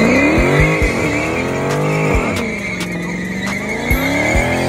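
Dodge Challenger SRT's V8 doing a burnout: the rear tyres spin and squeal in a steady high screech while the engine revs rise and fall several times.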